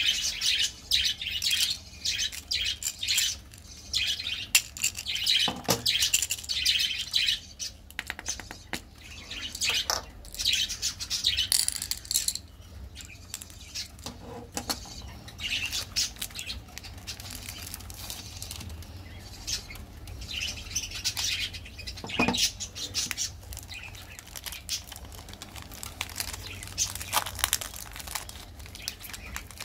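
Plastic candy wrappers crinkling and rustling as they are handled, in irregular bursts. Near the end a lollipop's wrapper is twisted open.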